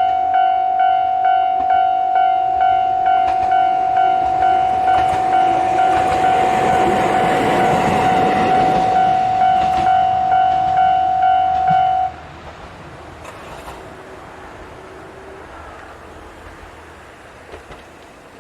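Level-crossing warning bell ringing in a steady tone pulsing about twice a second while a JR Hokkaido H100 (DECMO) diesel-electric railcar passes, the train noise swelling to its loudest mid-way. The bell cuts off suddenly about twelve seconds in, leaving the quieter sound of the departing railcar.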